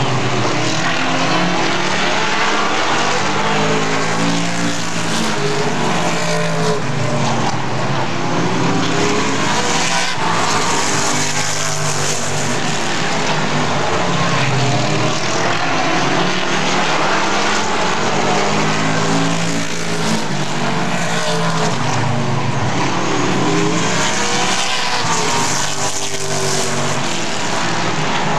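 A field of super late model stock cars racing, their V8 engines running hard, the overlapping engine notes rising and falling in pitch again and again as the cars lap past.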